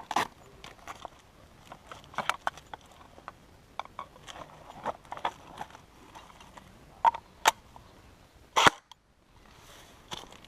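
Airsoft gun and gear being handled during a reload: irregular small clicks and knocks, with two sharp cracks about two-thirds through and a louder one near the end, after which the sound drops out for a moment.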